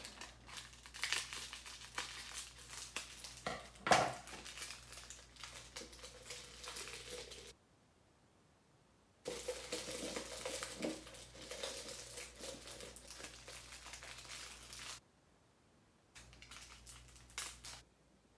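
Small plastic baggies crinkling as tiny resin diamond-painting drills are poured and nudged into a glass jar, with a louder knock about four seconds in. The rustling stops twice for a second or so.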